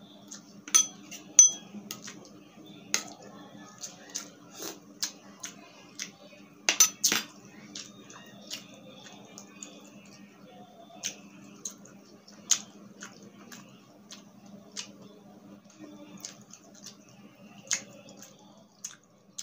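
Close-miked eating sounds from someone eating by hand: chewing and irregular sharp mouth clicks and smacks, a few louder ones bunched together about seven seconds in, over a faint steady hum.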